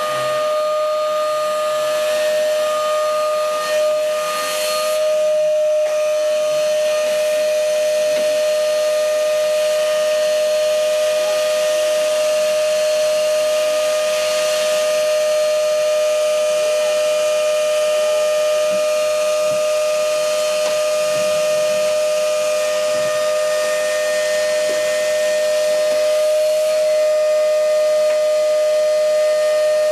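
Canister vacuum cleaner running steadily: its motor gives a high, even whine over the hiss of air drawn through the hose and floor nozzle.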